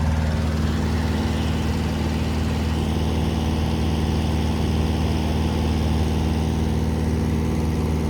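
Small prop plane's engine and propeller running steadily in flight, heard from inside the cabin as an even, unbroken hum.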